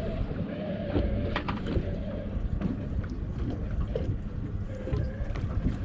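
Wind rumbling on the microphone and water sloshing around a small boat, with a few sharp knocks about a second and a half in.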